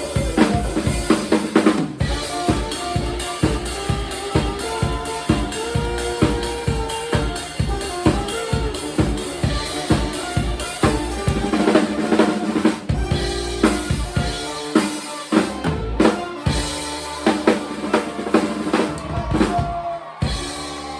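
Live band playing, with a full drum kit keeping a steady driving beat of kick, snare and cymbals under bass and other pitched instruments.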